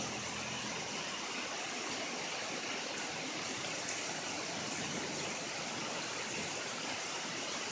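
Heavy rain pouring down hard, a steady, dense hiss with no breaks.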